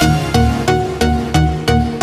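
Electronic background music: evenly spaced struck notes, about three a second, over a held tone, with the heavy bass of the track dropped out.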